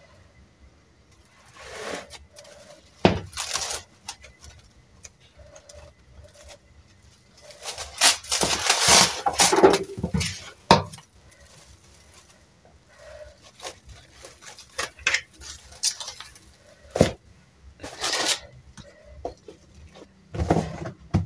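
Plastic cling film crinkling and rustling as it is pulled out and pressed over a bowl of dough, in short bursts and loudest for a few seconds about eight seconds in. Near the end come a few short knocks as a plastic lid is fitted onto the bowl.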